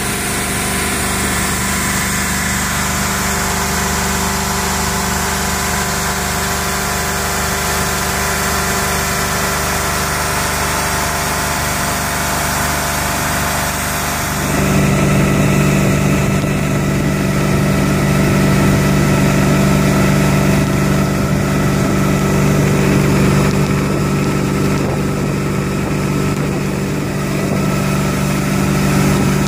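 Sterndrive engine of a 2002 StingRay 240LR (Mercury Bravo drive) running steadily under way, its pitch holding constant with no revving, over a hiss of water and wind. About halfway through the sound abruptly becomes louder, with a stronger low hum.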